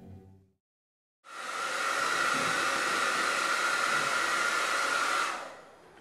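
Handheld hair dryer running: a steady rush of air with a high whine in it. It switches on suddenly about a second in and cuts off near the end.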